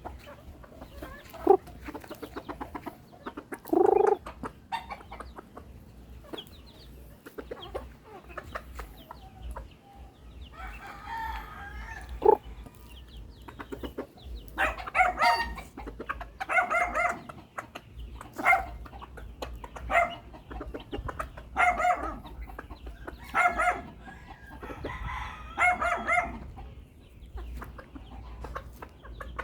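Chickens clucking and calling, with a rooster crowing; the calls come thick and repeated through the second half. A few sharp knocks early on, over a steady low rumble.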